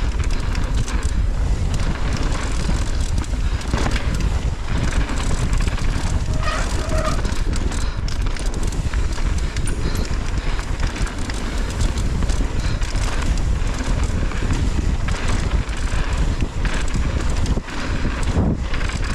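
Mountain bike riding down a trail: wind buffeting the microphone, with tyres rolling over dirt and frequent small knocks and rattles from the bike over rough ground.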